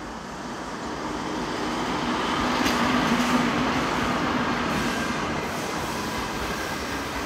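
EP2K electric passenger locomotive passing slowly with a steady hum, loudest about three seconds in. Passenger coaches then roll past, their wheels clicking over the rail joints.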